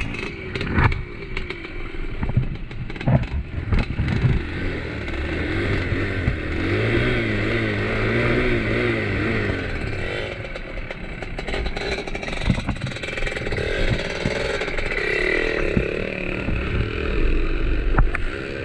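Off-road trail motorcycle engine revving up and down on rough ground, with several sharp knocks and clatter from the bike.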